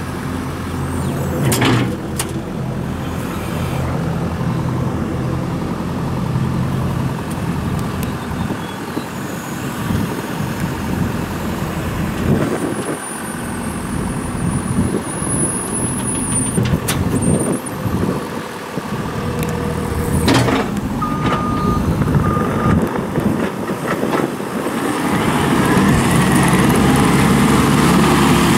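New Holland C232 skid steer's diesel engine running, its sound shifting as the machine works and growing louder near the end. Two short beeps come a little past two-thirds of the way through.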